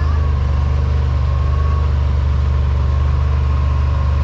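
Side-by-side UTV engine running at a steady, unchanging speed, a strong low drone with a thin steady whine above it.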